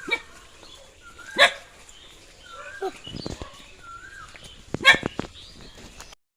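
A dog barking repeatedly and angrily at people walking past, with the loudest barks about a second and a half in and again near five seconds. The audio cuts off about six seconds in.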